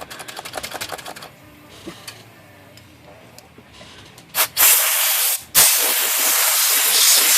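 Typewriter type bars clattering rapidly as they are worked to loosen the thinner-soaked pivots, then compressed air hissing loudly in two blasts, blown through the type segment to clear out lacquer thinner and grime.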